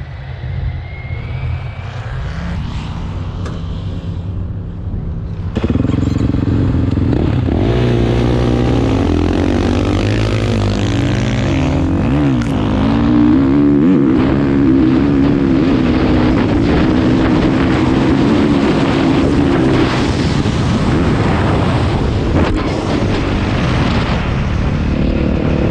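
Dirt bike engine running at speed. It is fainter at first and gets sharply louder about five and a half seconds in. The revs rise and fall a few times, then hold high and steady under heavy throttle.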